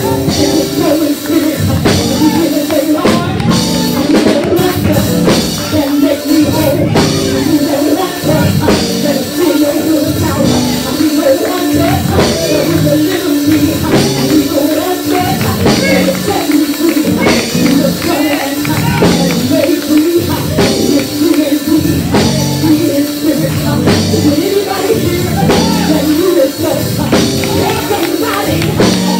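Live gospel praise music from a church band, with drums keeping a steady beat and a voice singing over it.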